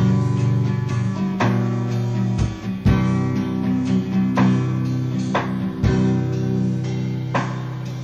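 Song played back from a cassette tape: an instrumental passage of guitar chords strummed afresh every second or so, with no singing.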